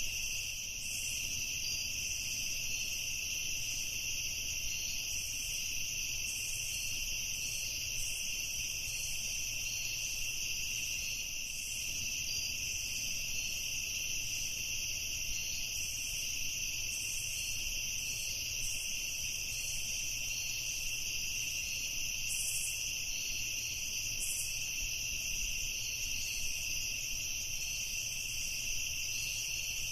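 Evening chorus of crickets trilling in a steady, unbroken high-pitched drone, with a faint low rumble underneath.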